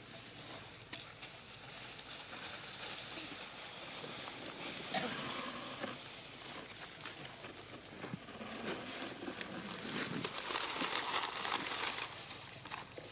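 Dry leaf litter rustling and crackling as monkeys move over it. The noise swells twice, the second time the loudest, near the end.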